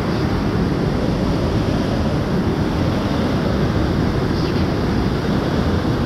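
Waterfall pouring: a steady, loud rush of water with no breaks.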